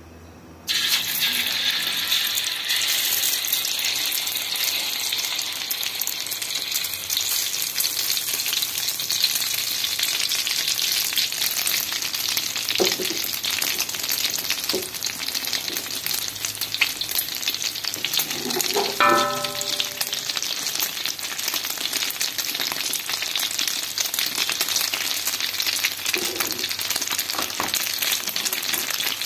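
Beaten egg and onion poured into hot oil in a wok: a sudden loud sizzle as the egg hits the oil about a second in, then a steady sizzle as the omelette fries.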